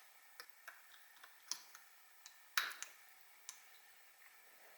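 Scattered light metallic clicks and ticks from fitting a Yamaha YZ85 piston onto its connecting rod, working the wrist pin and circlip into place; the loudest click comes about two and a half seconds in.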